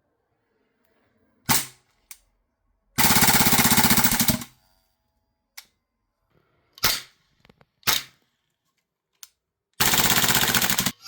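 Airsoft gun firing, presumably through the PTS Dead Air Sandman-K suppressor: a single shot, a rapid full-auto burst of about a second and a half, two more single shots, then another long rapid burst near the end.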